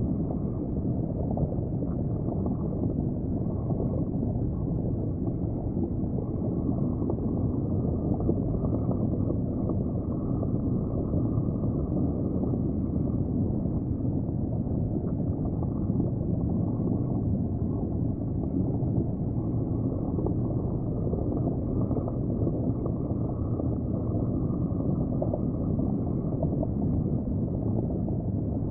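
Steady, muffled underwater rumble and gurgle of tank water, a low even noise with no distinct events.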